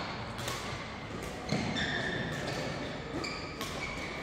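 A few sharp badminton racket hits on a shuttlecock and short squeaks of court shoes on the sports floor, echoing in a large hall.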